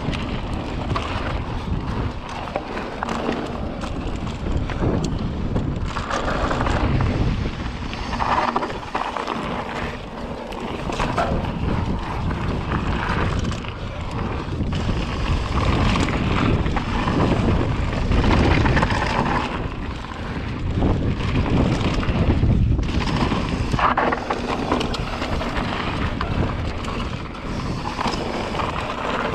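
Wind buffeting the microphone over the steady rolling noise of mountain-bike tyres on a dirt trail, with scattered knocks and rattles from the bike over bumps.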